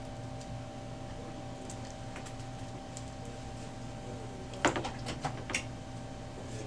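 A few light clicks and knocks of things being handled, with a quick cluster of sharper clicks about two-thirds of the way through, over a steady low electrical hum.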